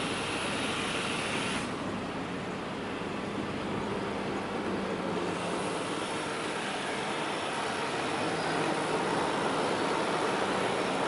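Steady road traffic noise: a broad rushing with a low engine hum under it, easing about two seconds in and swelling a little toward the end.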